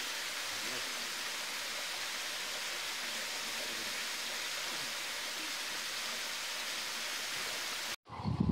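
Waterfall: water falling and splashing onto rock close by, a steady, even rush. It cuts off abruptly near the end, and a different low, uneven rumbling follows.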